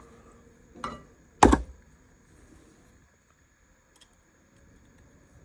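Two knocks on a workbench about half a second apart, the second louder, as revolver parts and tools are handled during reassembly.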